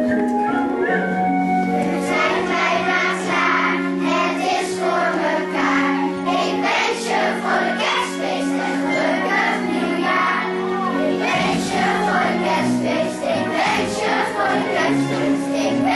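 Children's choir singing with instrumental accompaniment, a song with held notes and a steady beat.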